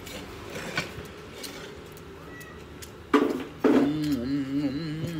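A man humming with his mouth closed, a long 'mmm' with a wavering pitch, as if enjoying his food. It starts abruptly about three seconds in, catches again half a second later, then keeps rising and falling.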